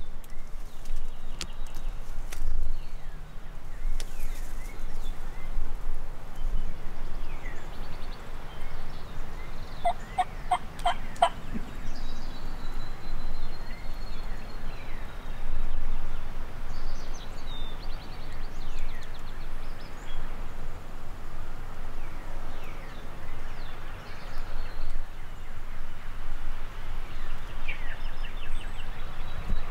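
Steady rain noise on the microphone, with wild turkey calls over it: a quick run of about six short, evenly spaced calls about ten seconds in, and fainter calls scattered through the rest.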